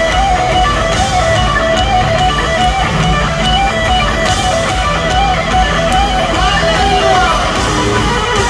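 Live heavy metal band in an arena: a distorted electric guitar plays a repeating lead phrase over bass and drums, with the echo of a large hall.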